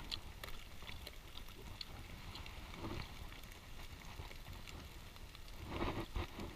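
Faint crinkling and ticking of aluminium foil as fish is picked from a foil packet on a campfire, over a low, uneven outdoor rumble. A short, louder muffled sound comes near the end.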